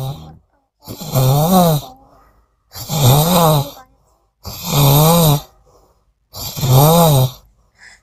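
A sleeping woman snoring loudly in a steady rhythm: one snore dies away just at the start, then four more follow about every two seconds. Each snore lasts about a second and carries a droning tone that rises and falls in pitch.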